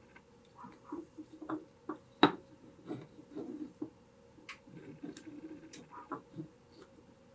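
Paracord being worked through the holes of wooden nunchaku sections by hand and with needle-nose pliers: scattered small clicks and short rustles of handling, with one sharp click about two seconds in.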